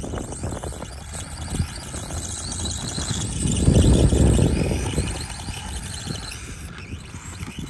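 SkyRC SR5 1/4-scale RC dirt bike's electric motor whining, its pitch rising and falling with the throttle. About four seconds in, as the bike runs close, a low rumble swells up and the whine is loudest.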